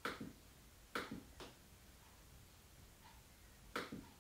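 Sharp clicks from a Microsoft Surface Book 2 laptop's trackpad and keys, a handful at irregular intervals: one at the start, a quick run of three about a second in, and a pair near the end. Between them the room is quiet.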